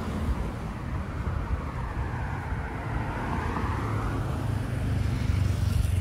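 City road traffic: cars running past with a steady low rumble, one vehicle's noise swelling and fading around the middle.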